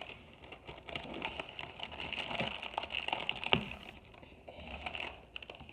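Irregular light clicks, taps and rustling from cookie dough being scooped out of its plastic container by hand, with one sharper knock about three and a half seconds in.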